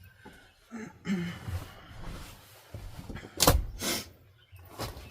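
Knocks and thumps of things being handled and stowed in an RV while packing up. A rustling scrape comes about a second in, and something shuts with a loud thud about three and a half seconds in, followed by two lighter knocks.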